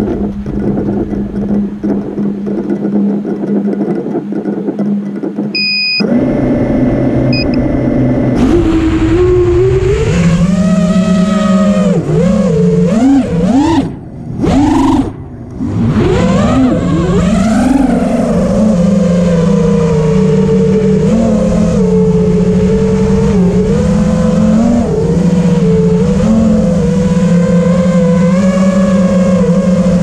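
Brushless motors and propellers of a 5-inch racing quadcopter (Johnny's 2207 2700 kV motors) whining in flight. A steadier, quieter hum gives way about six seconds in to a louder whine that rises and falls in pitch with the throttle. It cuts out briefly twice around the middle, then holds a fairly steady pitch with small wobbles.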